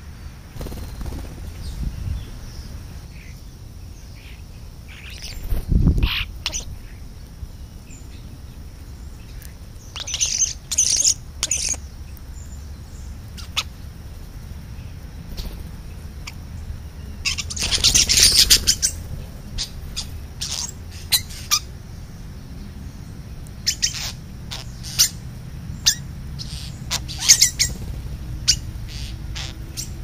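European starlings giving short chirps and squawks, scattered through, with a denser burst of harsh chatter a little past the middle. A low thump comes about a fifth of the way in.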